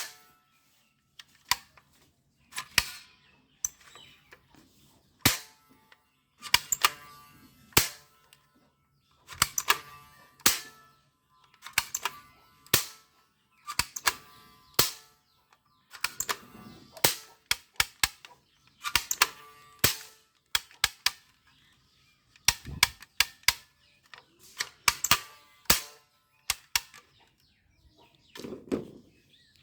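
Toy guns firing: quick bursts of sharp cracking clicks, a cluster of shots every second or two.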